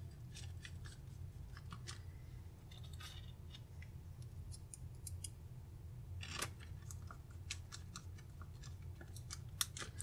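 Faint scattered clicks and light scrapes of a circuit board being handled and pressed into its plastic backing frame by hand, one a little sharper about six and a half seconds in, over a steady low hum.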